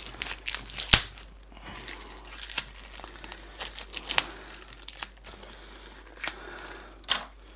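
Wrapping around a tight stack of beer mats being slit and torn open with a small knife: irregular crinkling and tearing, with a sharp snap about a second in.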